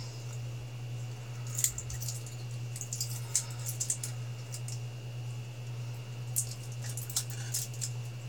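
Pliers working the metal connecting tabs off 18650 lithium-ion cells: scattered small metallic clicks and scrapes in short groups, over a steady low hum.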